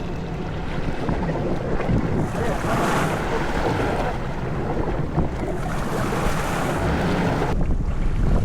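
Wind buffeting the microphone aboard a small fishing boat, over the wash of waves on the water.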